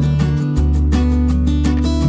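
Background music: a plucked and strummed guitar with a bass line, at a steady level.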